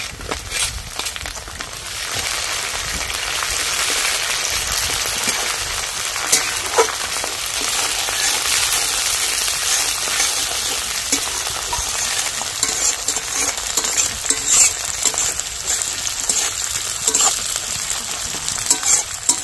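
Chopped tomatoes and onions sizzling in hot oil in a metal kadai. A flat spatula stirs and scrapes them, with occasional light clinks against the pan. The sizzle grows louder about two seconds in, as the fresh tomatoes meet the oil.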